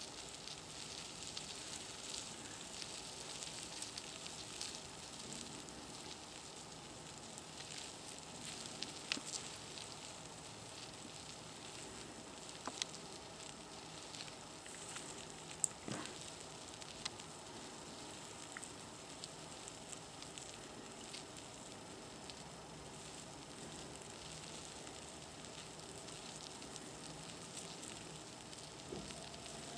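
Faint rustling and crackling of superworm larvae crawling and burrowing through wood shavings, with a few small ticks scattered through it.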